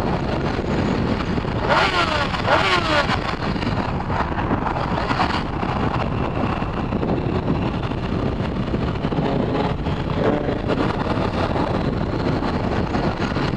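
Riding-along sound from a camera on a moving sport motorcycle: steady wind rush on the microphone over the engine and road noise. About two seconds in, the engine pitch slides down twice.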